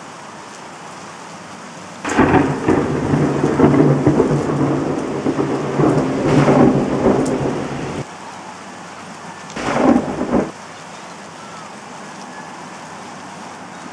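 Thunder and rain sound effects from a phone app: steady rain hiss, a long rumble of thunder that starts suddenly about two seconds in and cuts off abruptly about six seconds later, then a second, shorter thunderclap near the ten-second mark.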